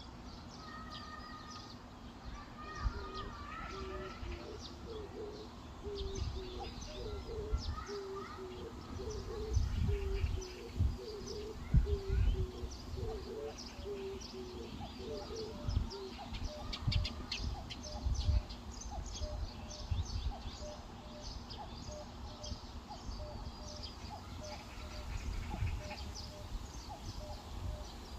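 Birds calling: a long run of short, evenly repeated low notes, with higher chirps and twitters over them. Gusts of wind buffet the microphone now and then.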